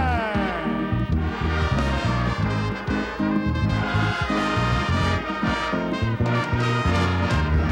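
Orchestra playing upbeat music, with violins and brass over a steady bass line.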